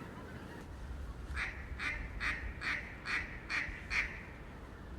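A series of about eight duck quacks, evenly spaced at roughly two a second, in a mallard hen's cadence, with a low wind rumble underneath.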